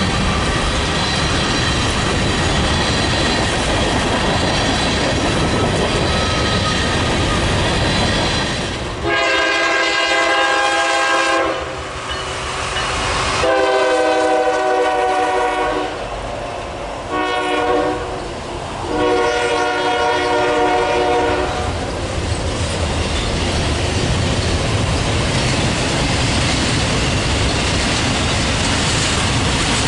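Freight train rumbling past with wheels clicking on the rail joints. About nine seconds in, the locomotive's multi-chime air horn sounds long, long, short, long: the standard grade-crossing signal.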